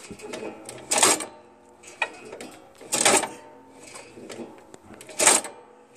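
Half-inch wrench working the brake-adjustment nut on a John Deere LA105 lawn tractor: three short bursts of metallic clicking about two seconds apart as the nut is loosened a little more, to stop the brake pads from dragging on the disc.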